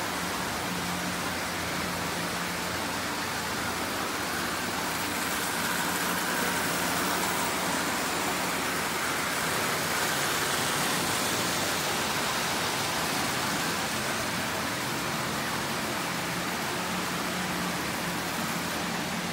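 Several Marx tinplate toy trains running on three-rail tinplate track: a steady rattling rumble of wheels and small electric motors, swelling a little as a locomotive passes close about ten seconds in.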